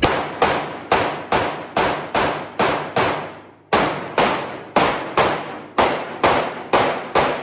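A string of about seventeen gunshots fired at a steady pace, roughly two a second, with one short pause about three seconds in; each shot rings out and fades before the next.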